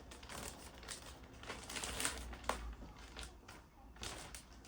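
Taped packaging being handled during an unboxing: irregular crinkling and rustling, with a sharp tap about two and a half seconds in.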